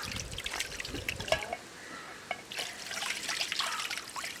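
Raw chicken being washed by hand in trickling water, with irregular small splashes and knocks.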